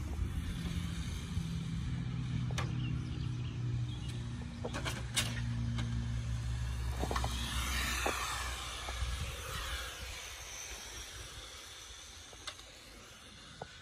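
Tamiya TT01 electric RC touring cars running laps on an asphalt track. A steady low hum fades out about ten seconds in, and there are a few sharp clicks along the way.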